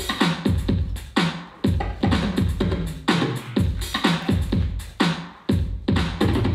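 Electronic dance music for popping, with a hard, regular beat and falling bass notes. It breaks off briefly about five seconds in, then the beat comes back.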